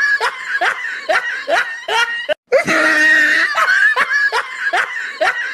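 Looped laughing sound effect: rhythmic bursts of laughter, about three a second. The sound cuts off briefly at about two and a half seconds, then the same laugh starts over with a drawn-out opening cackle followed by the same run of short bursts.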